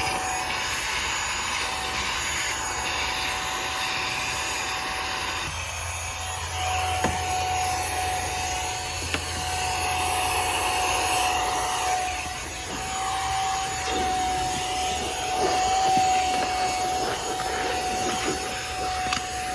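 KMM handheld cordless car vacuum with a 120 W motor running continuously, a steady high motor whine over a rush of air, the air noise rising and falling a little as the nozzle is worked.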